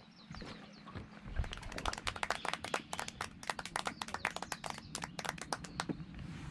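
A quick, irregular run of sharp taps or claps, several a second, starting about a second and a half in and stopping about six seconds in.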